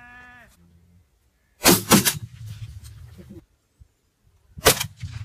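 Hunting gun firing: two sharp loud cracks a quarter second apart, a few faint clicks, then another crack near the end.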